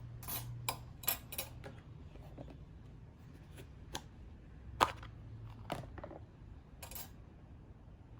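Irregular light clicks and taps of small objects being handled, the sharpest a little under five seconds in, over a low steady hum.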